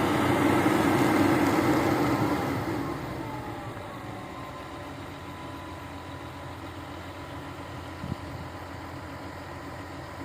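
Diesel engine of an amphibious excavator running, louder for the first couple of seconds and then easing down to a steady lower idle. A single short knock sounds about eight seconds in.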